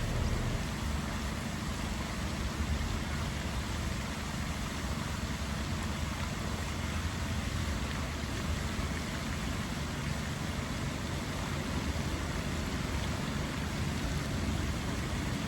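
Steady outdoor background noise with a low rumble, even throughout and with no distinct events.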